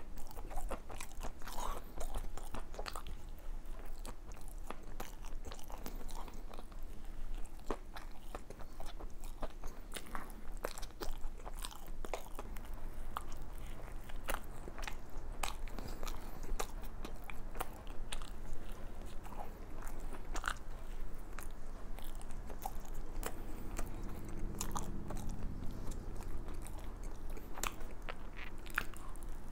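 Close-up biting and chewing of a chocolate-iced Krispy Kreme doughnut, with many small, irregular mouth clicks and crunches of the chocolate coating throughout.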